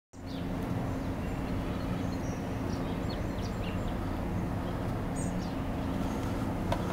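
Outdoor background: a steady low hum, with birds chirping briefly and repeatedly over it.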